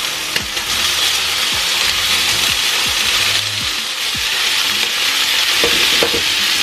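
Diced chicken breast and cubed tofu sizzling in hot oil in a frying pan, a steady frying hiss, with a few light knocks.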